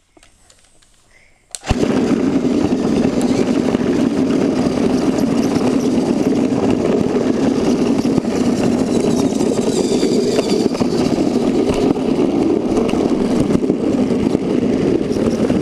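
Motorized toy train's motor and gears whirring steadily as it runs along its track, heard loud and close from a camera riding on the train. It starts suddenly about a second and a half in.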